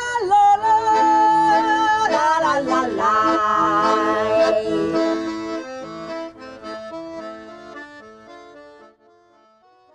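Music with held, overlapping notes, fading out over the second half until it is nearly gone.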